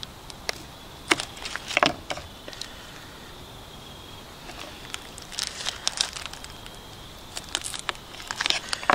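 Knife slicing a cured sausage on a wooden cutting board, with slices handled and laid onto bread. It comes as small clusters of short taps and scrapes, about a second in, again around the middle, and near the end.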